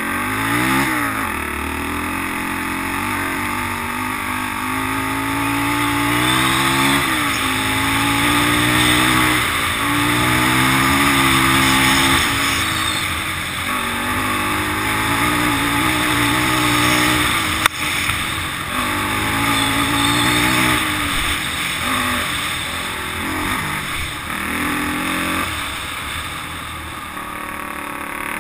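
Polaris Outlaw 500 ATV's single-cylinder four-stroke engine under way on a dirt trail, its pitch repeatedly rising and falling as the throttle is worked, over a steady rush of wind and tyre noise. One sharp knock about two-thirds of the way through.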